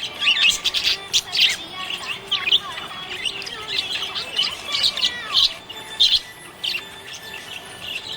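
Budgerigar chirping and warbling: a quick run of short, high chirps, busiest in the first half and thinning out toward the end.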